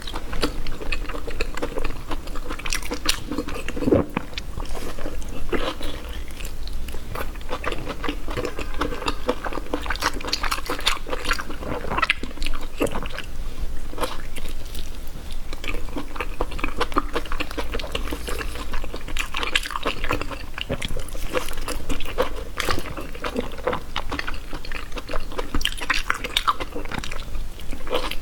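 Close-miked chewing and wet mouth sounds of someone eating spicy intestine: many small irregular smacks and clicks throughout.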